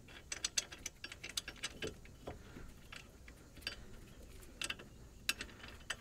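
Faint, irregular metallic clicks and ticks from the front brake caliper bracket bolts being fitted and threaded in by hand.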